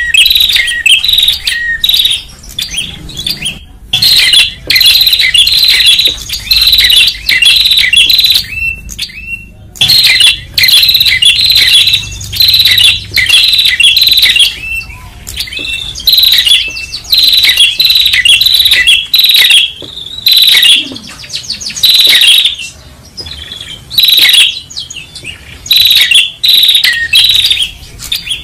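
Prenjak songbirds calling loudly and excitedly: bouts of sharp, rapid, repeated chirping notes, several a second, with short pauses between bouts. It is a bird-trapping lure call (pikat) of the kind played to draw prenjak in.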